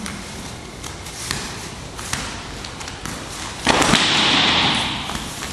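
Takedown onto a wrestling mat: light taps and shuffles of bare feet on the mat, then about two-thirds of the way through a sudden thud as a body hits the mat, followed by about a second of rushing, scuffing noise that fades.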